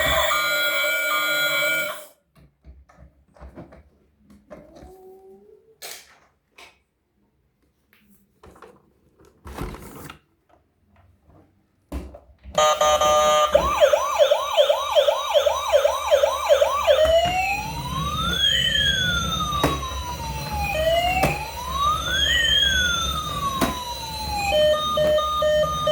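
Electronic siren of a toy emergency vehicle switching on after several seconds of faint handling clicks. It starts as a fast yelp of quick rising sweeps, changes to slow rising-and-falling wails, and near the end turns into a steady alternating two-tone hi-lo.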